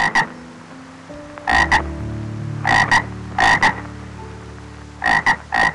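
Frog croaking in short, loud double notes, each call a quick pair, repeated about six times at roughly one-second intervals.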